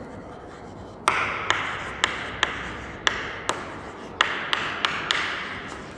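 Chalk writing on a chalkboard: sharp taps of the chalk striking the board, about two a second, with scratchy strokes between them, starting about a second in.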